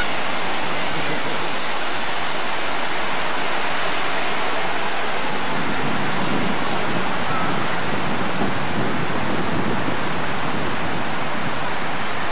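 Ocean surf breaking along a sandy beach: a steady, even rushing noise.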